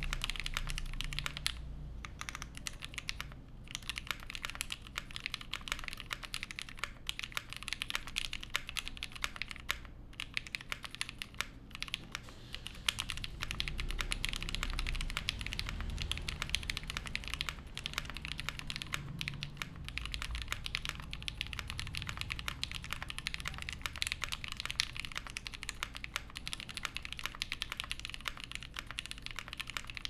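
Fast, continuous typing on a Viendi 8L mechanical keyboard fitted with lubed TTC OS switches, a nickel-plated plate and GMK keycaps: a steady stream of keystrokes, broken by a few brief pauses.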